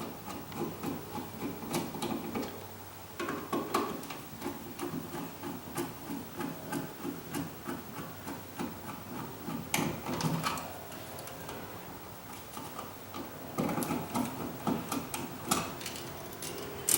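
A square-drive Robertson screwdriver backing out a wall receptacle's metal mounting screws: an irregular run of small clicks and scraping, with a few denser bursts of clicking.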